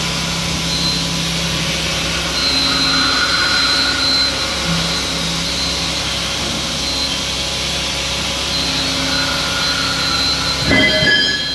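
Steady machinery noise of a metalworking shop: an even hum and hiss with faint whining tones that come and go, swelling briefly near the end.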